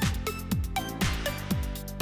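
Electronic background music with a steady beat, a deep kick drum about twice a second under repeating synth notes.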